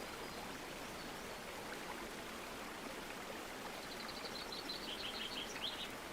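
Steady rushing of a mountain river and its waterfalls. Near the end a small bird sings a quick run of high chirps.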